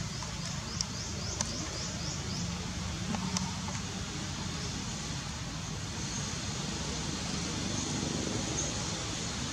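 Steady outdoor background noise with a low hum. A quick series of faint high chirps comes in the first two seconds or so, with a few light clicks.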